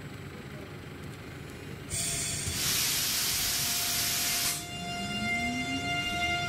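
An electric train out of view releases compressed air: a loud hiss starts suddenly about two seconds in and cuts off about two and a half seconds later. Then a steady electric whine comes in, with a rising tone as the train's traction motors begin to pull away.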